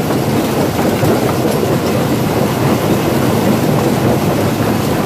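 Gas-powered go-kart engine running steadily with the kart under way.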